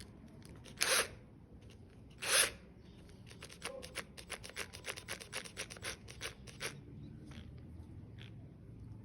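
Two short, loud scraping strokes, then a run of light rapid clicks at about five a second that stops near the end.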